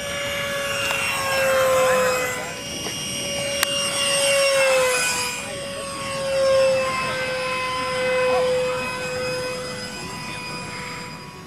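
Radio-controlled model jet in flight, its engine a steady whine that swells and fades several times as the plane passes and turns, with the pitch dipping slightly as it goes by.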